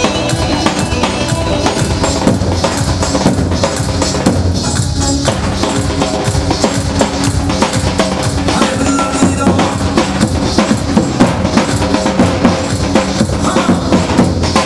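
Kurdish folk dance music from a live band with a keyboard, over a fast, steady drum beat.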